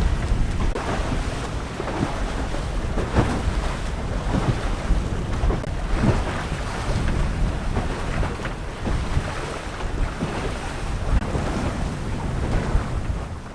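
Wind buffeting the microphone over the rush and splash of water along the hulls of a small sailing catamaran under sail, with uneven surges every second or so.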